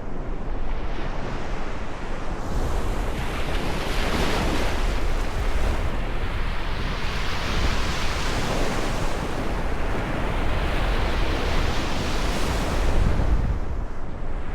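Ocean surf: waves breaking and washing in as a continuous rush, swelling louder about four seconds in and again near the end.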